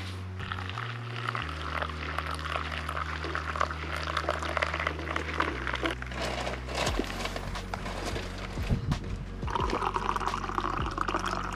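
Liquid being poured: hot water trickling from a pot over coffee grounds in a pour-over filter, then brewed coffee poured from the carafe into an insulated tumbler near the end. Background music with a low bass line plays under it.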